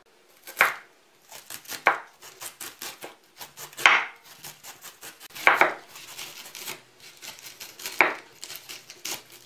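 Chef's knife shredding a young, fairly soft head of white cabbage on a wooden cutting board: a quick run of crisp slicing cuts, each ending in a knock of the blade on the board, with a few harder strokes every second or two.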